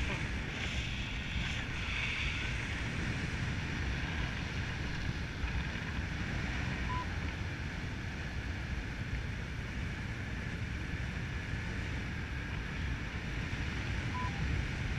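Steady wind rushing over the microphone of a paraglider in flight, with two brief faint beeps about seven seconds apart.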